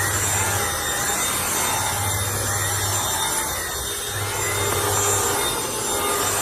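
Gtech cordless vacuum cleaner running over carpet, its motor and brush head going steadily while it is pushed back and forth, with a low hum that comes and goes about every two seconds.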